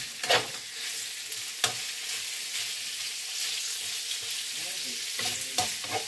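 Sausage and ham sizzling in oil in a frying pan, with a steady hiss, while a utensil stirs them and knocks sharply against the pan a few times.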